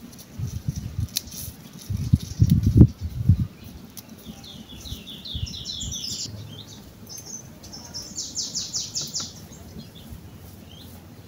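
A songbird singing two quick runs of repeated high chirps, the first about four seconds in and the second around eight seconds. Before it, low rustling knocks come in the first three seconds.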